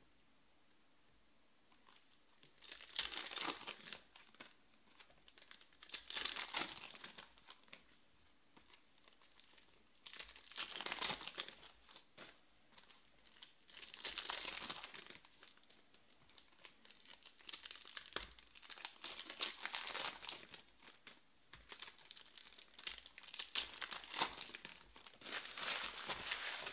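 Foil wrappers of Panini Select baseball card packs being torn open and crinkled by hand, in about six bursts a few seconds apart as pack after pack is opened.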